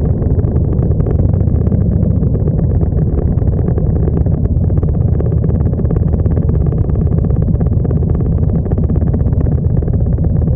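Motorcycle engines idling steadily in a stopped column of touring bikes, with a close, loud low sound throughout.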